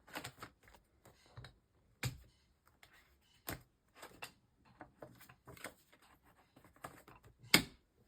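Paper planner inserts rustling and clicking as they are handled and fitted into a leather personal organizer, with scattered short clicks; the loudest, sharpest click comes near the end.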